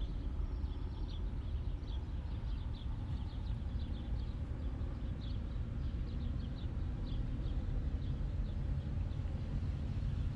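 Small birds chirping in many short, quick notes, scattered irregularly, over a steady low rumble.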